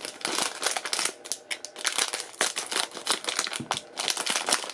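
Shiny foil blind-bag wrapper crinkling as it is crumpled and opened by hand, a rapid irregular crackle with brief pauses.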